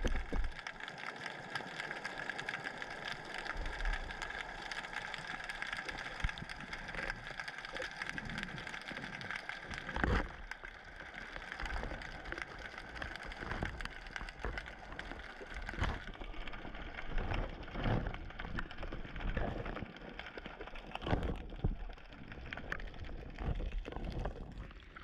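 Underwater noise picked up by a submerged camera: a steady hiss with a faint high hum, broken by scattered knocks and low thumps, the sharpest about ten seconds in and again near sixteen seconds.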